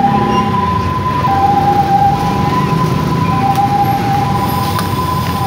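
Railway level-crossing warning alarm sounding, two steady tones alternating about once a second, over the low rumble of the Alsthom diesel locomotive idling at the halt.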